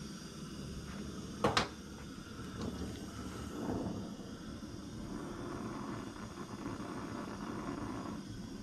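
Oxy-fuel gas torch flame hissing steadily as it heats a pinion gear's set screw in a vise to burn off the thread locker. A single sharp knock about a second and a half in.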